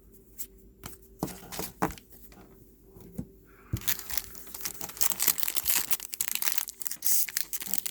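Trading card pack wrapper handled with a few light clicks, then crinkling and tearing as it is pulled open from about halfway through. The wrapper is hard to open.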